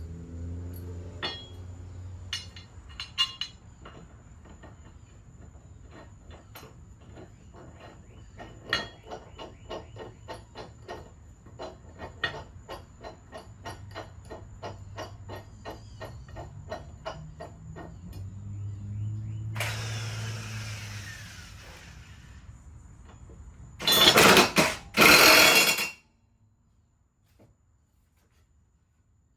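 Hand ratchet wrench clicking in a steady run of strokes while working on the mower's blade bolts. Near the end come a few loud, harsh bursts of noise, and then the sound cuts off.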